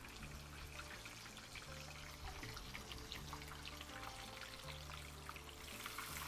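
Hot oil sizzling and crackling around a flour-dredged burger patty deep-frying in a pot, under soft background music with a steady bass line. The crackling gets louder near the end.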